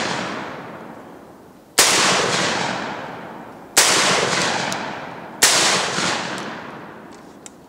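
A Derya Lion Trap semi-automatic 12-gauge shotgun firing 3-inch, 1¾-ounce Rio magnum shells through its high-pressure piston. There are three shots about two seconds apart, each with a long echo dying away. The echo of a shot fired just before is still fading at the start.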